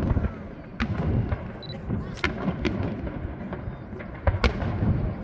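Aerial fireworks bursting: about five sharp bangs at uneven intervals, two of them close together near the end.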